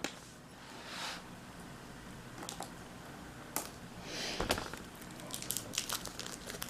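Faint handling noises: two soft rustles and scattered light clicks and taps, more of them near the end.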